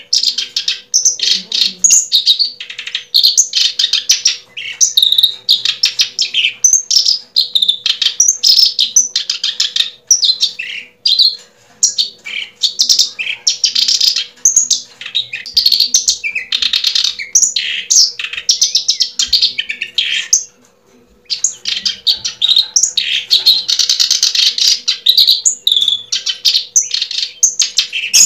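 Birds chirping in quick, dense runs of short high notes, with a brief break about twenty seconds in; a faint steady hum lies underneath.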